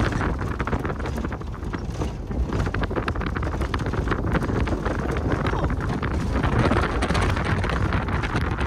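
Inside a moving bus: steady engine and road rumble with constant rattling and knocking from the cabin.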